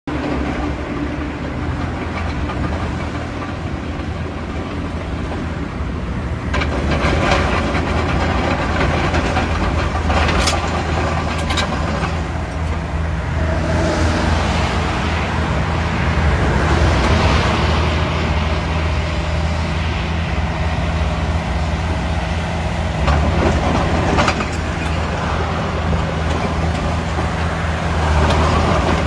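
Heavy diesel construction machinery engines running steadily, with a few sharp metallic knocks and clanks from the working equipment.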